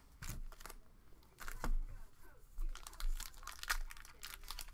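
A 2021 Topps Archives baseball card pack being torn open by hand: the wrapper crinkles and tears in a run of sharp crackles, loudest from about a second and a half in.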